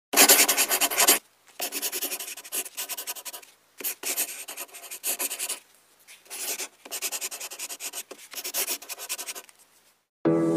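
Marker pen writing on cardboard: a series of quick rubbing strokes, each up to about a second long, with short gaps between. Music starts right at the end.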